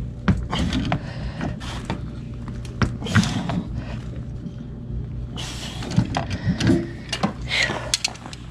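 Tongue-and-groove pliers working a brass water-line fitting on a water heater, making a run of irregular metal clicks and knocks over a steady low hum.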